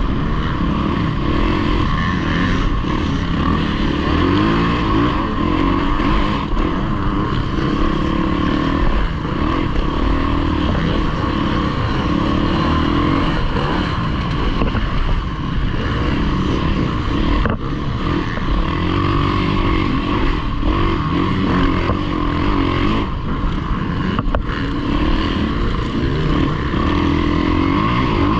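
Yamaha dirt bike engine running hard under the rider, its revs rising and falling constantly with the throttle, with a couple of brief drops in the revs.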